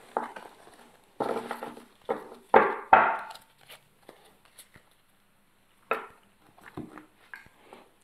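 A deck of oracle cards being shuffled by hand, the cards swishing and slapping together in several short bursts, with a few light clicks near the end.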